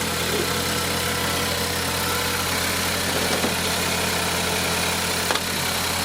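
2010 Mazdaspeed 3's 2.3 L turbocharged four-cylinder engine idling steadily, with a single short click about five seconds in.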